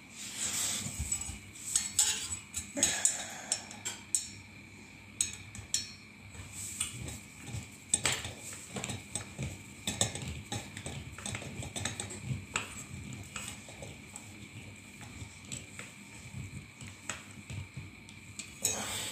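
Metal log burner fan being handled and screwed back together: irregular small metallic clicks, taps and scrapes of a screwdriver against screws and the fan's metal body and blades.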